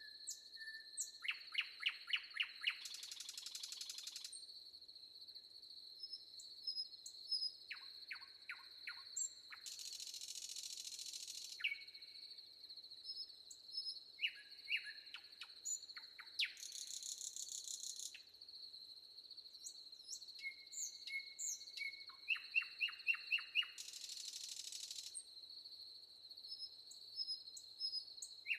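Forest ambience: several birds singing short phrases of rapidly repeated chirps over a steady high-pitched insect drone. A loud rasping buzz of one to two seconds comes back about every seven seconds.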